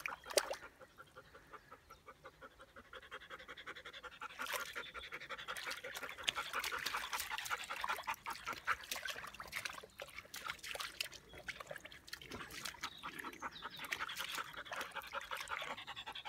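Dog panting rapidly and rhythmically while standing in a shallow stream, the panting getting louder about four seconds in, with some splashing of water as it moves.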